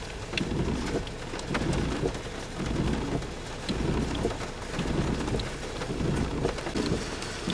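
Rain drumming on a vehicle's roof during a hailstorm, heard from inside the car: a steady surging rumble with many scattered sharp ticks of individual impacts.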